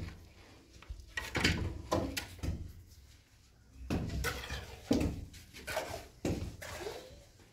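A string of irregular knocks and thumps, about a dozen, with a quieter stretch around three seconds in.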